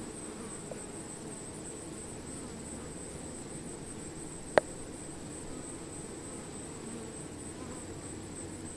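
Bees buzzing low under a steady, high-pitched insect chirring, with one sharp click about halfway through.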